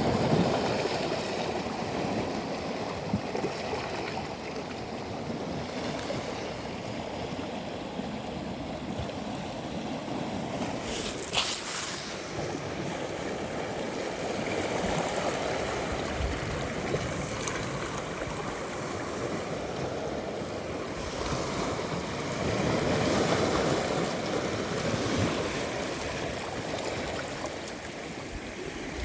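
Sea waves washing onto a sandy beach: a continuous rush of surf that swells louder every several seconds as waves break and run up the sand.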